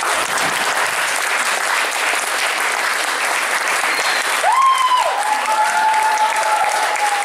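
Audience applauding at the end of a stage dance number. About four and a half seconds in, a single long high-pitched call rises over the clapping and is held, sinking slowly in pitch.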